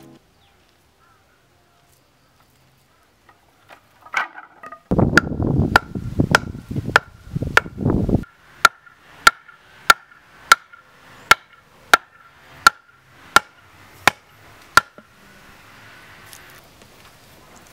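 A machete chopping wooden stakes. First comes a few seconds of rough hacking, then about ten sharp, evenly spaced blows, each with a brief metallic ring.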